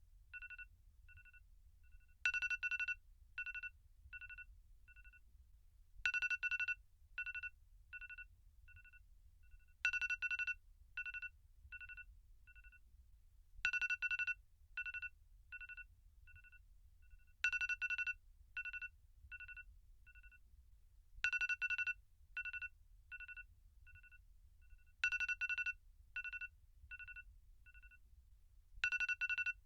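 iPhone alarm tone going off over and over: a loud cluster of quick high beeps, then a run of softer single beeps, repeating about every four seconds.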